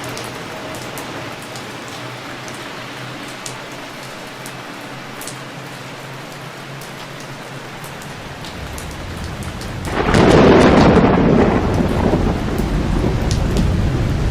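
Heavy rain falls steadily, with scattered sharp drip ticks. About two-thirds of the way through, a low rumble builds into a loud clap of thunder, which then rolls on.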